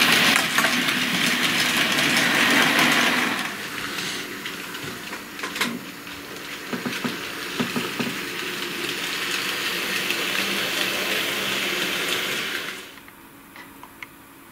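TT-gauge model trains running on the layout: loud rolling and motor noise as a freight train passes close for the first few seconds, then quieter running with many small clicks from wheels on the track. The noise drops away suddenly near the end, leaving a few faint ticks.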